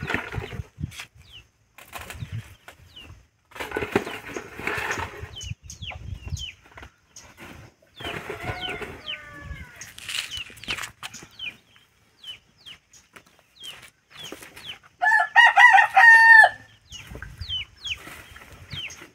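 Chickens clucking with short high chirps, and a rooster crowing once about fifteen seconds in, the loudest sound. A few bursts of rustling come in between.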